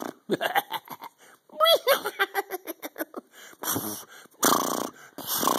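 A man's wordless vocal noises: giggling and breathy laughing in short bursts, with pitched sounds that swoop up and down and a few longer breathy blows near the end.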